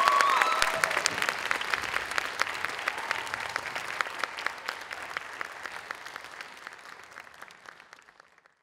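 Theatre audience applauding, with a few cheers right at the start, then fading out steadily to silence.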